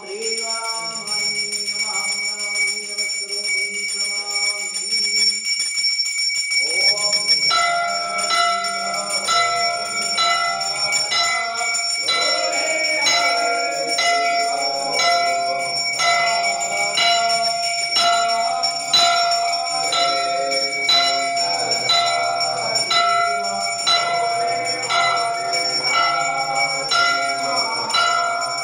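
A small brass puja hand bell rung continuously in quick repeated strokes during aarti, its bright ringing starting about seven seconds in. It follows a steady held tone in the first few seconds.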